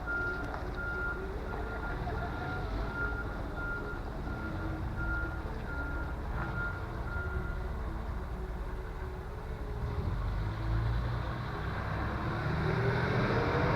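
A truck's reversing alarm beeping steadily, about once every 0.7 seconds, stopping about halfway through, over the truck's engine running, which grows louder near the end.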